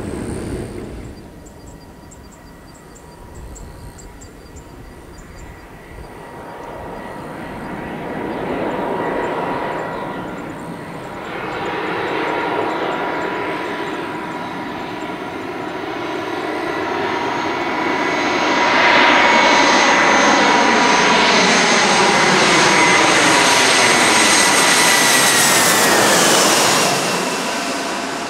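Airbus A320-211's CFM56 turbofan engines on a low approach: a jet whine that grows steadily louder, then drops in pitch near the end as the airliner passes overhead.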